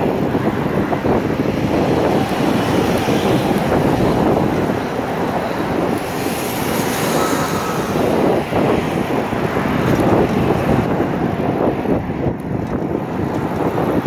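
Wind buffeting the microphone of a moving e-bike: a loud, steady, gusting rush of air noise, with a brief brighter hiss around the middle.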